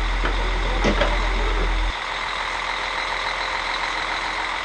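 Truck-mounted crane's diesel engine running steadily, with a couple of sharp knocks about a second in. The sound drops to a quieter drone about two seconds in.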